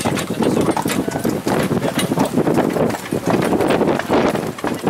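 Hooves of a horse pulling a carriage clip-clopping on the road in a quick, even series of strikes, over a continuous rumble.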